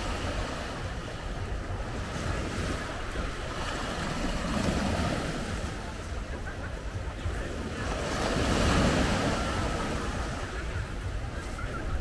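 Small waves breaking and washing up a pebble beach, the surf swelling twice, about four and about eight seconds in. Low wind rumble on the microphone underneath.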